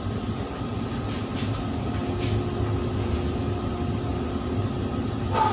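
Steady low rumble of a ship's machinery running, with a few faint steady tones on top. There are a few faint clicks early on and one sharper knock near the end.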